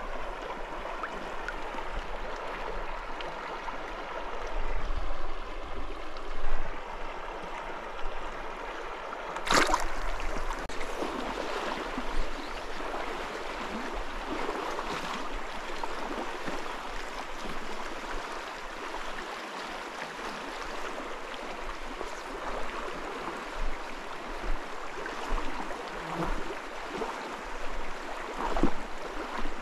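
Fast, shallow mountain creek rushing steadily over a rocky bed, with a few dull thumps and one sharp click in the first ten seconds.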